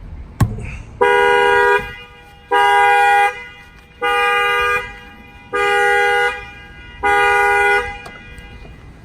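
A single sharp knock, then the 2018 Honda Accord's horn honks five times in even pulses, about 0.8 s on and 0.7 s off: the factory alarm going off, set off by its add-on shock sensor.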